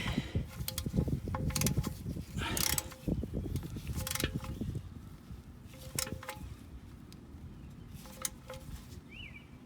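Ratchet wrench with a 14 mm socket clicking as the oil drain plug is tightened, with metal tool clinks that ring briefly.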